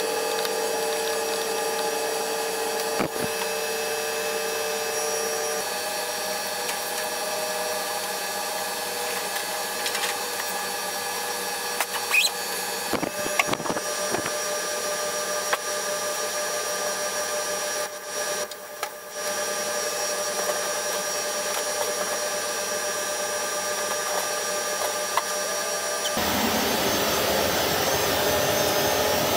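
Steady drone of running machinery with several constant tones and a few sharp clicks. About 26 s in, a louder, even rushing noise like blowing air takes over.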